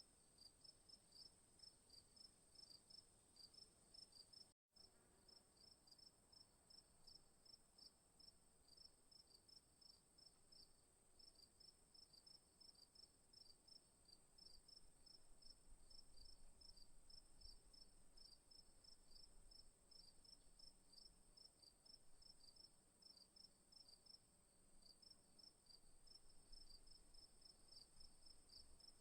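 Night chorus of crickets: a steady high-pitched trill under a lower, rapid run of repeated chirps. The sound cuts out completely for a split second about four and a half seconds in, then resumes.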